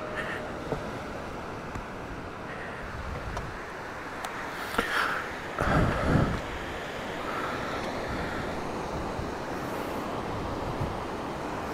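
Steady wash of shallow surf on a flat sand beach, with wind buffeting the microphone and a louder rush about five to six seconds in.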